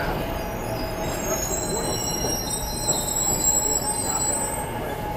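SEPTA Market-Frankford Line train rolling along the platform with a steady rumble. From about a second in until near the end, several high-pitched metal squealing tones ring out together over it.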